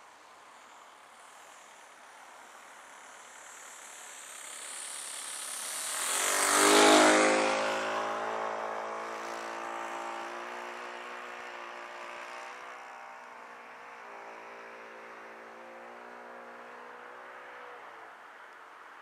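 Radio-controlled model aeroplane engine flying past: it grows louder to a peak about seven seconds in, its pitch drops as it passes, and then it fades away as it flies off, dying out near the end.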